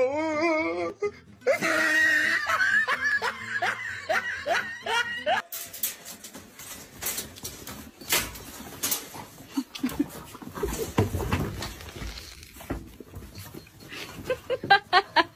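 Laughter and dog vocalizations for the first five seconds or so, then a stretch of scattered knocks and scuffling noise.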